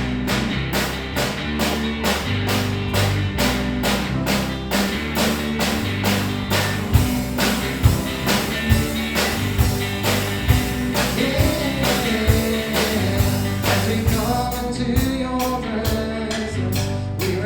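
Worship band music with a steady drum beat, bass and electric guitar, playing the introduction to a congregational worship song.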